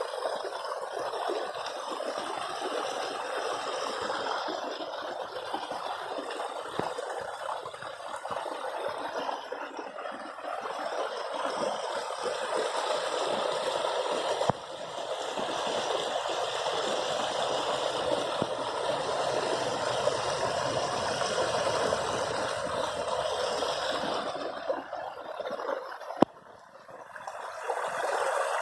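Stream water flowing steadily. Near the end a sharp click comes, and the water sound drops away for a moment before returning.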